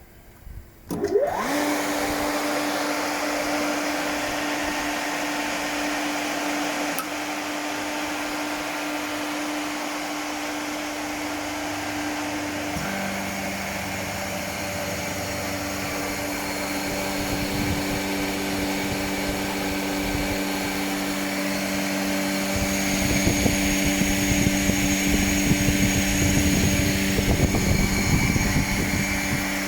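BOGE C7 LDR screw air compressor, driven by a 5 kW electric motor through a direct coupling, starting up about a second in: a quick rising whine as the motor spins up, then a steady running hum. About thirteen seconds in the hum steps down in pitch, and the running grows louder and rougher for a few seconds near the end.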